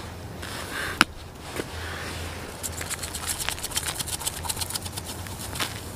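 Seasoning shaken from a spice bottle onto a raw rib steak: a quick, dense rattle of grains from about two and a half seconds in. A single sharp click about a second in.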